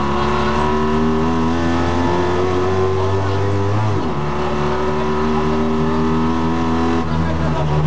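Fiat 126p rally car's two-cylinder engine heard from inside the cabin, pulling under acceleration with its pitch slowly climbing. About halfway through the revs dip sharply, then climb again.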